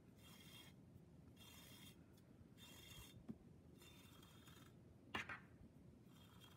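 Faint rubbing swishes of yarn drawn through a hole in a ceramic loom tile, pulled in short strokes about once a second. A light click about five seconds in is the loudest sound.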